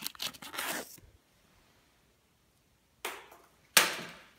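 Rustling, scraping noise of something being handled or crunched for about a second, then near silence. After that come two sudden scraping crashes close together near the end, the second the loudest, each dying away quickly.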